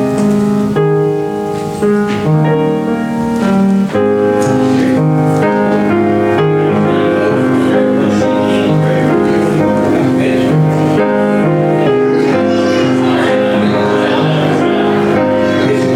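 Music with piano playing held chords that change every second or so. From about four seconds in, the texture grows fuller and steadier.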